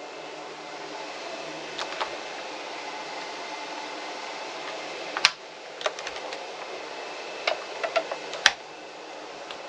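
Steady background hiss, with a handful of sharp clicks and knocks scattered through it. The loudest come about five seconds in and again near the end, with a quick cluster of smaller ones just before the last.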